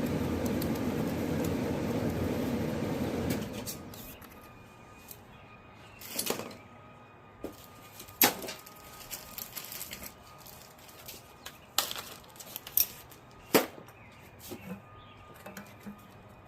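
A steady mechanical noise for the first few seconds that cuts off, then scattered sharp metallic clicks and clinks of hand tools and bolts as the valve body is unbolted from a 1965 727 automatic transmission.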